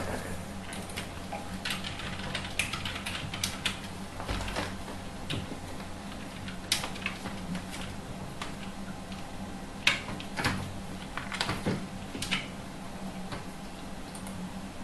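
Irregular clicks, taps and rustles of two kittens play-fighting, their claws and paws scrabbling on a wire desk tray and newspaper, over a steady low hum.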